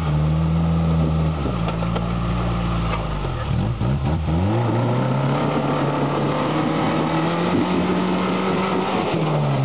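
Rock crawler's engine working under load as it climbs over boulders. The revs hold steady, dip and climb sharply about four seconds in, hold higher, then drop near the end.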